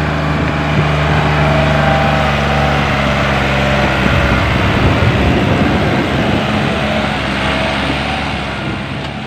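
Powertrac Euro 50 tractor's diesel engine running under load while it hauls a fully loaded dual-tyre trolley. It is steady at first, becomes louder and less even as the tractor passes close about four seconds in, then fades near the end.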